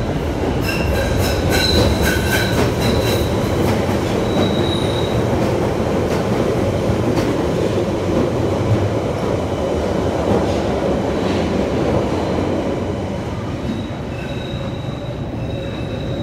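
London Underground Central line tube train moving along the platform, wheels running loudly on the rails with a high-pitched squeal that sounds in the first few seconds and again near the end.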